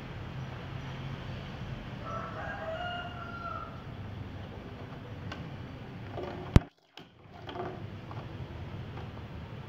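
A rooster crows once, a single long call about two seconds in, over a steady low background hum. About two-thirds through there is one sharp click, the loudest sound here, and the sound cuts out for a moment.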